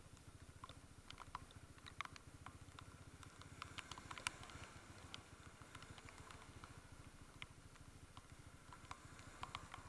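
Faint, steady low pulsing of a Honda CB150 Invicta's single-cylinder engine running, with scattered sharp ticks of raindrops tapping close to the microphone, more of them about four seconds in.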